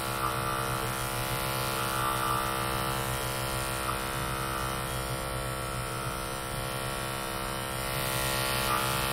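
Electric hair clippers running with a steady hum as they cut through hair.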